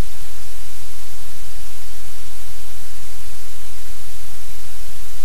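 Loud, steady static hiss with a low hum underneath, unchanging throughout.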